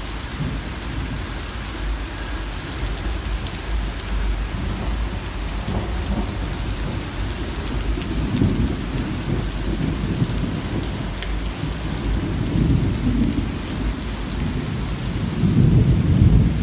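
Steady rain falling, with thunder rumbling low several times, the loudest roll near the end.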